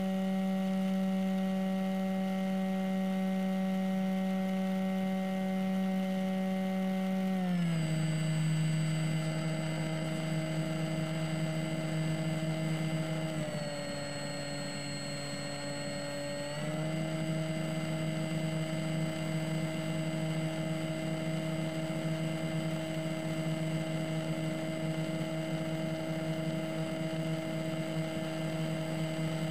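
Sky Eye FPV glider's brushless electric motor and pusher propeller, heard from the onboard camera, humming at a steady pitch. The pitch steps down about seven seconds in as the throttle is eased. It dips lower for about three seconds midway, then returns to a steady hum.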